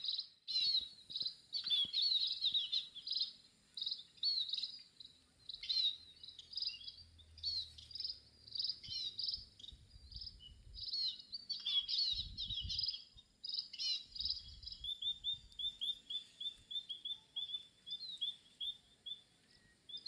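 Small birds chirping and twittering with high, quick calls and trills. From about fifteen seconds in, one bird repeats short notes several times a second. A faint steady high hum runs underneath.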